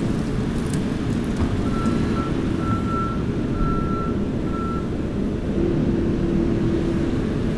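Kioti skid steer's diesel engine running under load while its back-up alarm beeps, about one beep a second; the beeping stops about five seconds in as the machine stops reversing.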